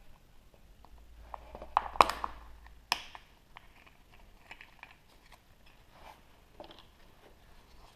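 Hands handling and opening a chocolate surprise egg: light crinkling and small clicks, with a cluster of sharp snaps about two seconds in and one more sharp snap about a second later.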